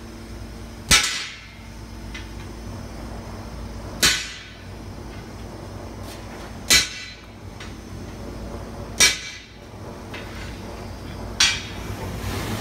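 Hammer blows driving a punch through a red-hot 20 mm steel bar on an anvil: five heavy strikes about two and a half seconds apart, each ringing briefly, with faint taps between them.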